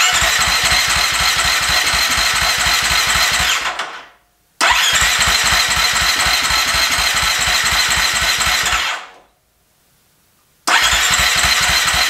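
Electric starter cranking the single-cylinder four-stroke engine of a Husqvarna FE 350 bored to 366 cc, in three separate attempts of a few seconds each with short pauses between; the engine turns over rhythmically but does not catch. The spark plug cap was later found not fully seated on the plug.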